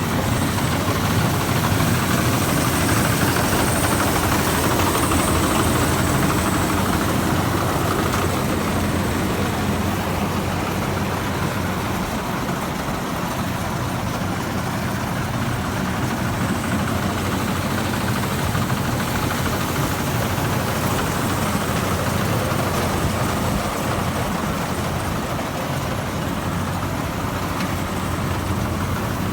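Rice combine harvester running steadily at work, its diesel engine and machinery giving a constant drone.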